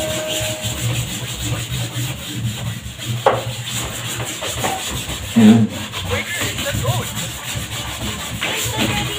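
Vinegar-soaked cloth scrubbed back and forth by hand against a wooden wardrobe panel to wipe off mould, a steady rubbing, with a louder knock about five and a half seconds in.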